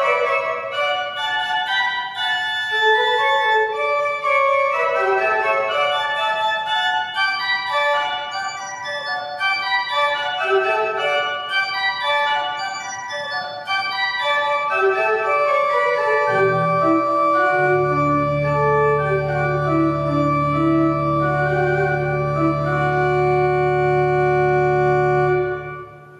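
Organ music: a lively run of many quick notes, then a deep pedal bass note comes in under a final chord that is held for several seconds and stops just before the end.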